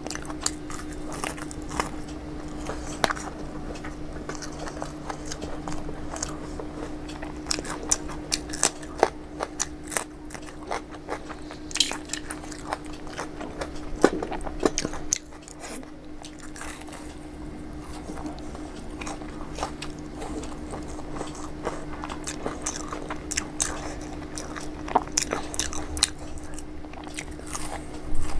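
Pani puri being eaten: crisp hollow puri shells cracking and crunching as they are bitten, with wet chewing between bites, over a steady low hum.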